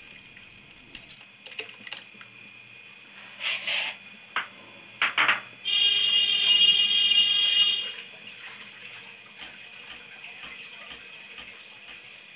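Lassi-and-gram-flour batter pouring into a steel kadai, stopping about a second in, followed by a steel spoon stirring and knocking against the pot a few times. Partway through, a loud high whistling tone with several pitches at once sounds for about two seconds and is the loudest thing heard.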